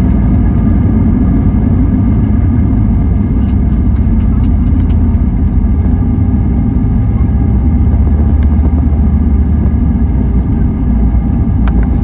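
Steady roar of an Airbus A320's engines and airflow heard from inside the passenger cabin: a dense low rumble with faint steady whines above it and a few light clicks.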